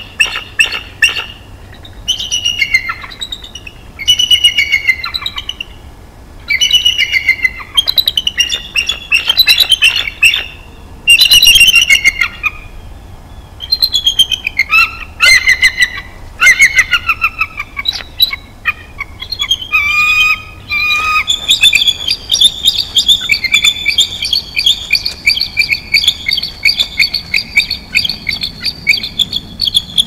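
A pair of bald eagles calling: a string of high, falling chittering calls, then in the last third one long unbroken run of chatter as the pair mates.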